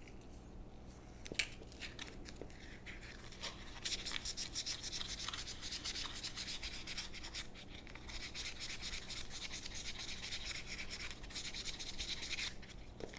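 320-grit sandpaper rubbed in rapid short strokes across the bottom of wooden Smith & Wesson revolver stocks, truing them flat and smooth. A few light handling clicks come first, then steady quick sanding from about four seconds in that stops just before the end.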